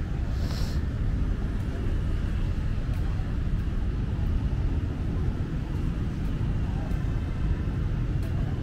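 City street ambience: a steady rumble of passing traffic, with people's voices in the background. There is a brief hiss about half a second in.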